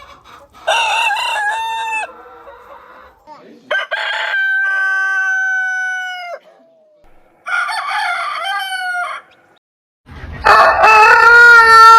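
An ayam ketawa (laughing chicken) rooster crowing three times: the first crow starts with a wavering stutter, and the second is long and drops in pitch at the end. Near the end a louder steady held tone begins.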